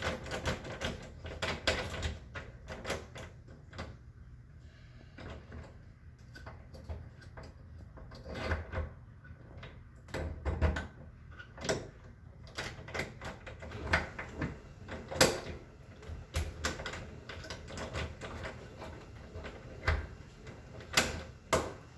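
Irregular metallic clicks, knocks and rattles from a locked interior door's privacy lock and handle being worked at with a tool, with one sharper knock partway through.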